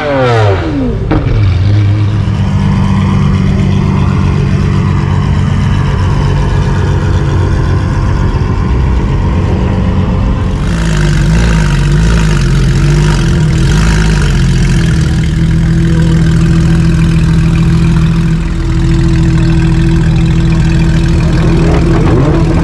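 Exotic car engine being revved, with the revs falling away about a second in, then running at a loud idle with small blips, and climbing again near the end.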